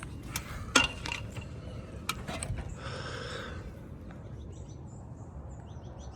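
A few sharp clicks and knocks, the loudest a little under a second in, then a brief rustle about three seconds in, over a steady low outdoor rumble.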